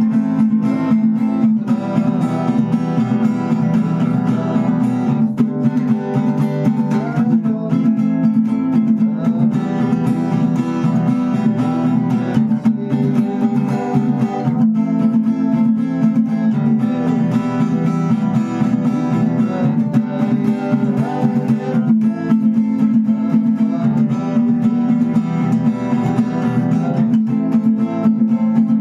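Acoustic guitar strummed in a steady rhythm, the chords changing every second or two. It is played with the percussive 'knock' strumming technique, a muted hit on the strings within the strum.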